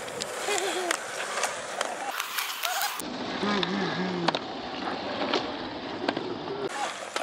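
Skateboard wheels rolling on concrete, with scattered sharp clicks and knocks from the board. Brief voices come in at times.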